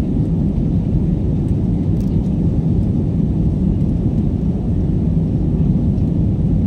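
Steady, low drone of an airliner's jet engines and airflow heard inside the passenger cabin during the climb after takeoff.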